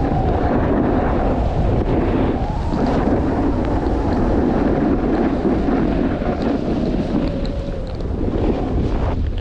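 Wind buffeting the camera microphone during a downhill ride on snow: a loud, steady rushing noise that dips briefly about two and a half seconds in.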